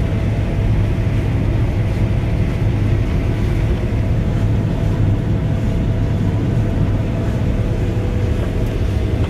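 John Deere combine harvester running steadily under load while cutting and threshing wheat, heard inside the cab: a constant low drone of the engine and threshing machinery with a faint steady whine above it.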